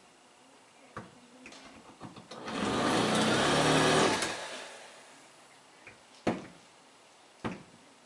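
A power drill runs for about two seconds while boring into a Defiant deadbolt, with a few sharp knocks before and after.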